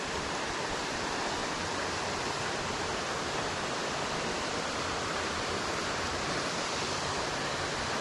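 Steady rush of a waterfall pouring into a creek pool, an even, unbroken noise.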